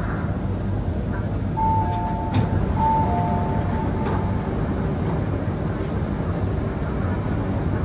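Steady rumble inside an MTR Q-train car standing at the platform. About a second and a half in, a two-tone electronic door chime sounds twice as the doors open, with a short knock in the middle of it.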